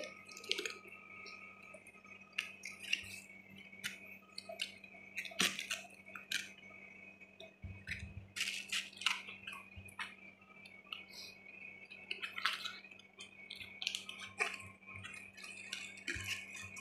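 Leaves being pulled off a large head of cabbage by hand: irregular crisp snaps, crinkles and rustles, over a faint steady hum.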